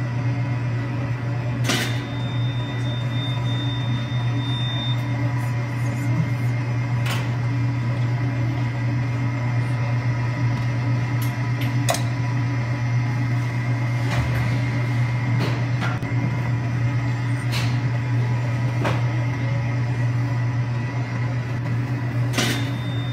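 A steady, loud low hum from a running motor or appliance, with a few sharp clicks or taps scattered through it.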